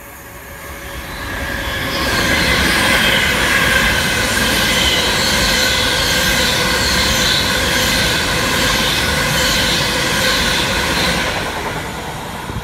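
A train passing close by. The noise builds over about two seconds, stays loud and steady with several high ringing tones over the rumble of the wheels on the rails, then eases off near the end as it goes away.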